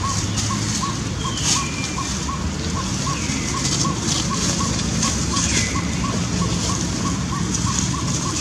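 Forest ambience: a steady rushing noise under a short soft call repeating evenly about two to three times a second. There are three brief falling whistles and scattered rustles and crackles of dry leaves where macaques move through the leaf litter.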